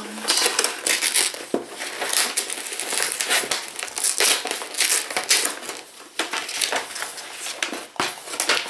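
Paper wrapping being unfolded and pulled open inside a cardboard box: continuous, irregular crinkling and rustling, with brief lulls about six and eight seconds in.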